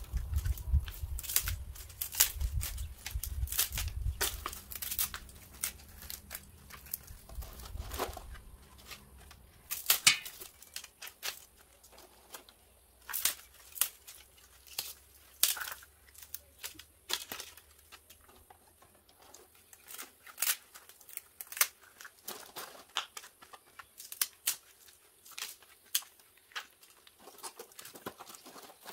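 Fresh pine shoots and green young pine cones being snapped off and handled: irregular sharp snaps and crackles with rustling. A low rumble stops about ten seconds in, and the snaps grow sparser after that.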